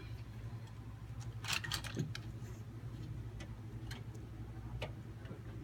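Small sharp clicks and taps of computer parts, screws and a screwdriver being handled: a quick cluster of clicks a little over a second in, then single clicks spaced about half a second to a second apart. A steady low hum runs underneath.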